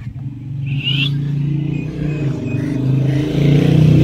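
A motor vehicle engine running nearby, a steady low drone that grows louder towards the end as it draws closer.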